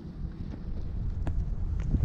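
Wind buffeting the microphone, a low uneven rumble that grows louder, with a few faint clicks.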